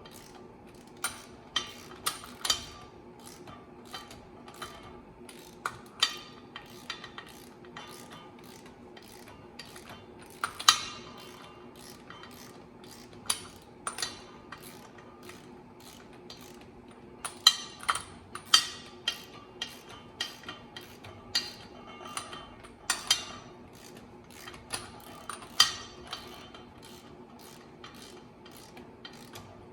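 Hand ratchet clicking and metal clinking as flywheel bolts are drawn down onto the crankshaft in a crisscross pattern, in irregular strokes with short pauses, over a faint steady hum.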